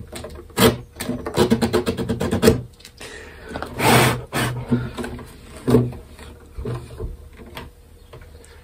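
Sandpaper swiped through the joint between the neck heel and body of a 1951 Kay K10 acoustic guitar during a neck reset: a fast run of scraping clicks about a second in, a louder scrape near the middle, then a few dull wooden knocks as the neck is handled against the body.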